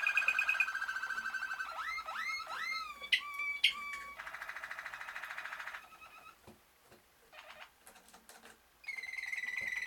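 Malinois (Waterslager) canaries singing their rolling tour song. A held rolling trill opens, then three quick rising glides and a buzzy trill. It falls quieter for a few seconds and a steady higher trill starts near the end.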